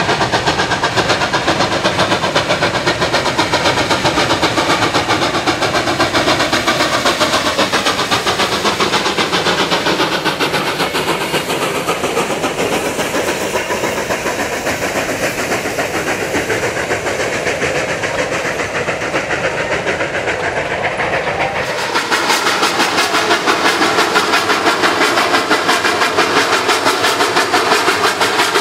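Durango & Silverton narrow-gauge steam locomotive working hard, its exhaust chuffing in a steady rhythm as it passes, then its coaches rolling by. About 22 seconds in the sound cuts abruptly to another stretch of the steam train chuffing past.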